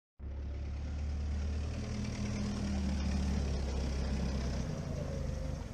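Vehicle engine idling steadily, with a low, even note that shifts down about five seconds in.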